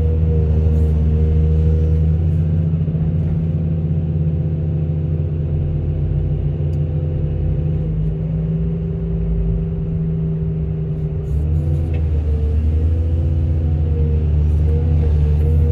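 Excavator's diesel engine running steadily under load, with a deep hum. It eases off for a while in the middle, then its pitch rises and falls as the hydraulics work.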